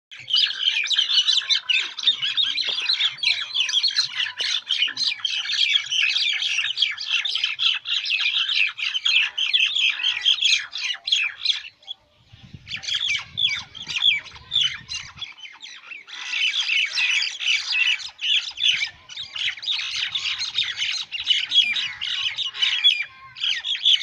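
Two mynas fighting, giving a dense, continuous run of harsh, rapid squawks and screeches, broken by a short pause about halfway through.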